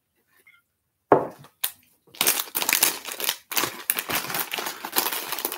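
Plastic snack wrapper crinkling and crackling as it is handled and opened, starting with a sharp crackle about a second in and turning to dense crinkling from about two seconds in.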